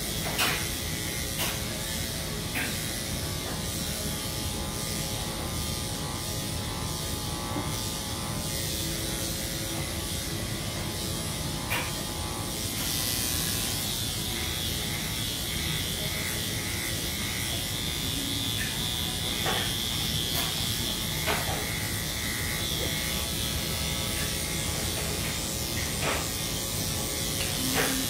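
Electric dog grooming clippers running steadily through the coat, with a few brief clicks scattered through.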